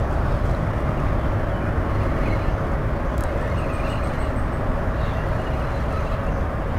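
Steady low rumble of distant road traffic with a faint even hum, and a short run of faint high ticks about halfway through.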